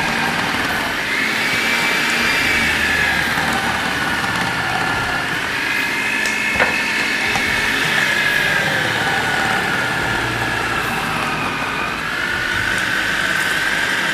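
Anex food processor's motor running on low speed, shredding carrots fed down the tube: a steady whine that sags and rises in pitch as the carrots are pressed against the disc. One sharp click about halfway through.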